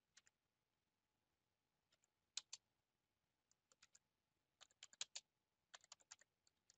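Typing on a computer keyboard: faint, sharp key clicks in short irregular bursts with pauses between them, the loudest pair of strokes about two and a half seconds in and a quick run of keystrokes around five seconds.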